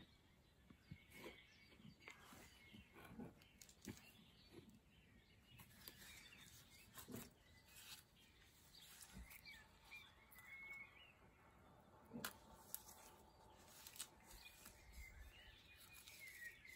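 Near silence outdoors: faint distant bird chirps and a scattering of soft clicks and rustles from hands handling the plant.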